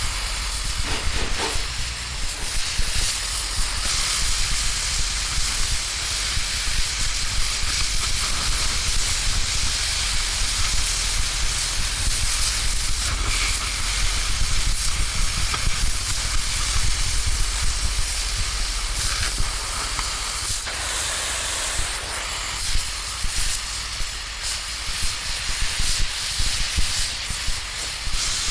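A steady, crackling hiss over a low rumble.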